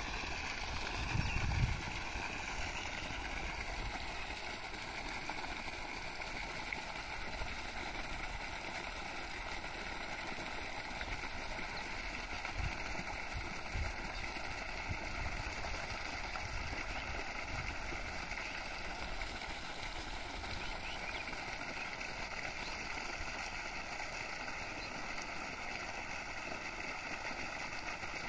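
Steady rush and splash of water gushing from the outlet pipe of a 3 HP solar water pump into a flooded field channel. Wind briefly rumbles on the microphone about a second in.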